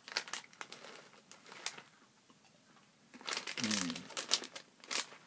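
Plastic snack bag crinkling and crackling in the hand, with a short hummed 'mm' about three and a half seconds in.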